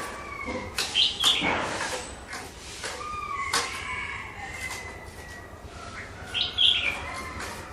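Chinese hwamei (melodious laughing thrush) giving long sliding whistled calls and sharp bright notes, mixed with wing flutters and sharp knocks. The loudest notes come about a second in and again near the end.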